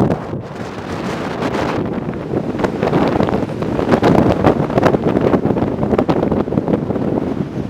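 Strong gusty wind buffeting the microphone, a steady loud rush with rapid flutters.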